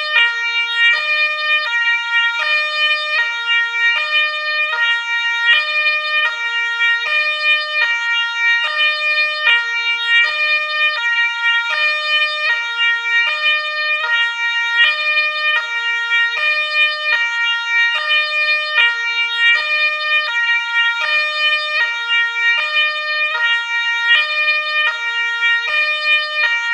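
Ambulance siren sounding a two-tone call, switching back and forth between a high and a low note in an even, repeating cycle.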